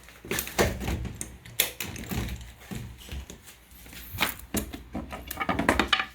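Irregular clicks and knocks from handling and movement, over a steady low hum.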